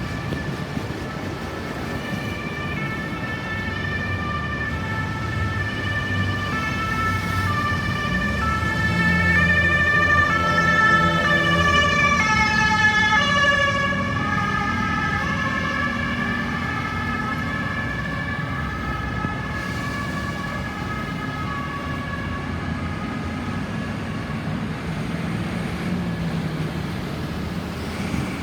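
Ambulance siren sounding a two-tone hi-lo wail as it passes. It grows louder, is loudest about ten to thirteen seconds in, then drops in pitch and fades as the vehicle moves away, over a low traffic rumble.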